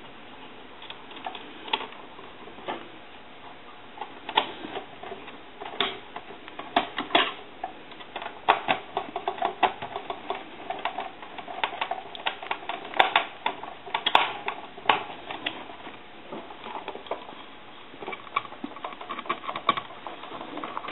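Irregular clicks, taps and small knocks of telephone parts and screws being handled and fitted as the telephone is reassembled, busiest around the middle.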